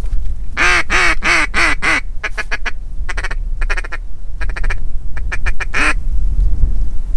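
Loud duck quacking: a run of about five drawn-out quacks, then several quicker chattering bursts. A steady low wind rumble on the microphone sits under it all.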